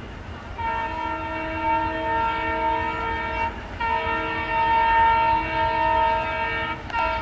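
Air horn of twin WDM-3A diesel locomotives approaching at speed, sounding two long blasts of about three seconds each and then a short third blast.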